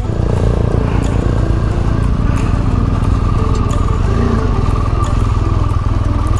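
BMW R1200GS's boxer-twin engine running steadily at low road speed.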